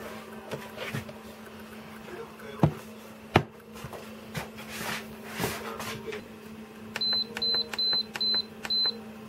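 Redmond multicooker lid snapped shut with two sharp clicks, then five short high beeps about two-thirds of the way in as its panel buttons are pressed to set the cooking time.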